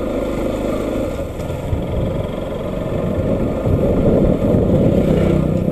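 Bajaj Pulsar NS200 motorcycle's single-cylinder engine running steadily as the bike sets off on the road.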